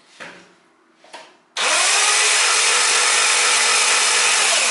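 Engine turned over by its starter motor for a compression test with the spark plugs removed. It makes a steady whirr that starts abruptly about a second and a half in and cuts off at the end. Two short knocks come before it.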